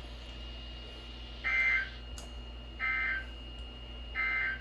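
Emergency Alert System data tones over a radio: three short, identical warbling bursts about 1.4 s apart, the end-of-message code that closes the broadcast warning.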